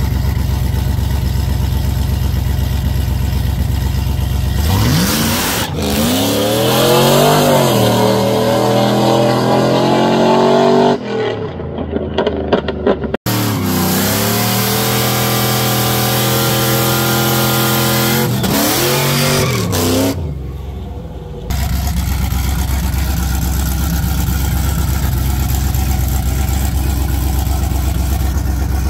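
Chevrolet Trailblazer SS V8 idling, then revved up and down in two separate spells, then settling back to a steady idle.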